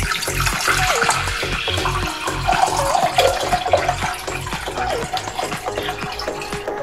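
Water poured in a steady stream from a measuring jug into a stainless steel pot, splashing against the metal as the pot fills. Background music with a steady beat plays underneath.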